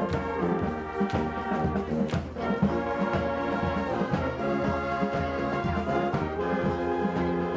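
Marching band music: brass playing held chords over a steady drum beat.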